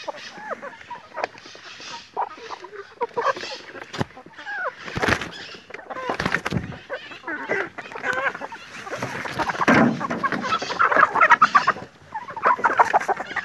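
A flock of hens clucking and calling as they feed at a trough. The calls are short and overlapping, and they grow louder and busier in the second half.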